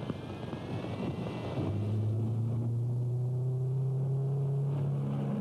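Car engine running, a noisy rush at first and then a steady low hum from about a second and a half in that rises slightly in pitch.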